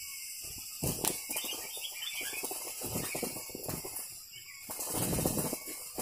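A bird's wings flapping in quick fluttering bouts, starting about a second in and picking up again near the end, with a few short chirps early in the first bout.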